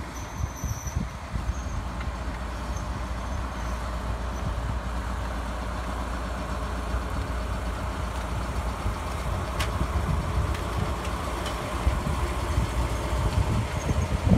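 DE10 diesel-hydraulic locomotive passing slowly while hauling a train, its V12 diesel engine running with a steady low drone, growing a little louder toward the end. A single sharp click about ten seconds in.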